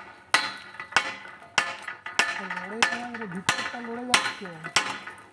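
Hand-held hammer striking the iron pipe and head of a hand pump, about eight evenly spaced blows, each a sharp metallic clank that rings briefly. The blows work the pump's fitting loose so it can be opened.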